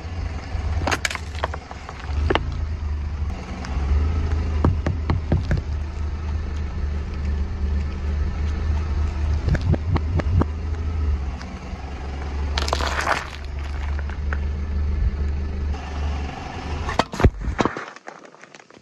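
A car tyre slowly rolls over and crushes a run of objects, including a plastic squeeze bottle, sausages and a pressurised drink can, giving a series of cracks, pops and splats over the low rumble of the car. Two louder bursts, about 13 and 17 seconds in, are the loudest moments.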